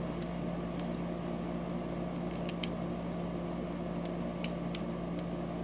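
Light, scattered clicks of a plastic fidget spinner and its metal bearing being handled and pried apart by hand, about seven in all, over a steady background hum.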